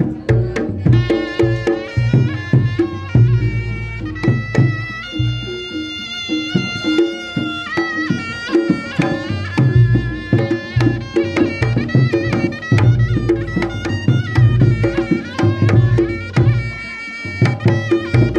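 Reog gamelan music: a slompret, a shrill reed shawm, plays a wavering melody with some long held notes over kendang drums and struck gongs and percussion.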